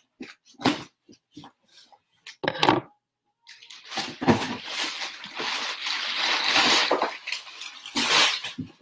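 A cardboard shipping box being opened and unpacked: a few scattered knocks and taps, then about five seconds of steady rustling and crinkling from handling the packing.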